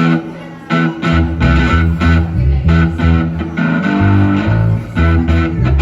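Guitar music: plucked, pitched notes in a steady rhythm over a low bass line, somewhat quieter for the first half-second or so.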